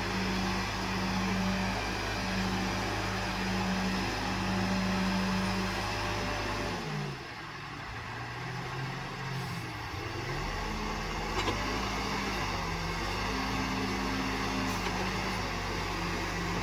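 Escorts Digmax backhoe loader's diesel engine running as the backhoe arm works. The engine note drops about seven seconds in and picks back up a few seconds later.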